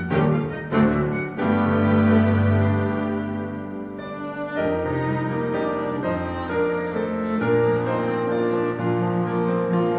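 Classical music for piano and bowed strings, played back through Yamaha NS-1000MM three-way bookshelf speakers driven by a Triode TRV-88SE valve amplifier. A quick run of struck chords in the first second and a half gives way to long held notes.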